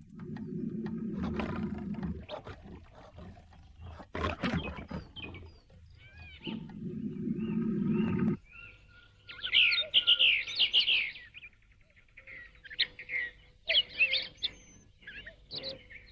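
A big cat growling low twice, each growl lasting about two seconds, followed by birds calling with sharp, high chirps in bursts through the second half.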